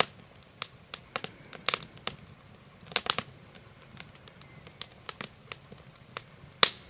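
Scattered sharp clicks and pops at uneven spacing, about one to three a second, with quiet room tone between them.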